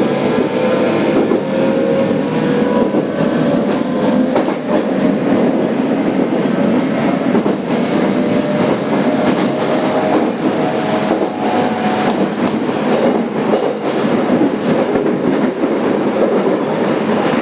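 Interior running noise of a JR Kyushu 817 series 3000-subseries electric train in a motor car: a steady whine from the traction motors and inverter over rolling wheel and track rumble, with rail-joint clicks.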